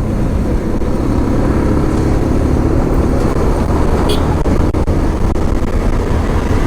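Motorcycle riding at speed on a highway: steady wind rush and road rumble on the microphone over a faint engine drone.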